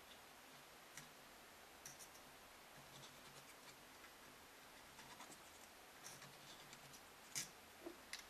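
Faint scratching and small clicks of a microfibre sensor-cleaning swab being drawn across a Sony E-mount camera's APS-C sensor and handled in the lens mount, with a sharper click about seven seconds in.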